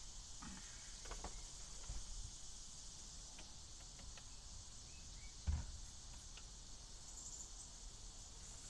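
Gloved hands wiping a steering wheel with a cloth: faint rubbing and small knocks, with one louder knock about five and a half seconds in, over a steady high drone of insects.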